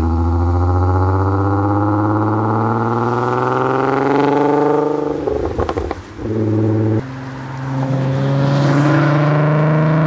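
Volkswagen Golf R32's 3.2-litre VR6 engine accelerating hard, its pitch rising steadily for about five seconds. It breaks off briefly with some crackle and comes back lower, then changes abruptly about seven seconds in and climbs again.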